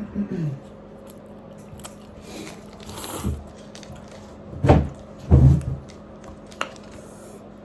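A person eating spicy instant ramen noodles close to the microphone: biting and chewing, with small wet clicks throughout and a few louder bites in the second half.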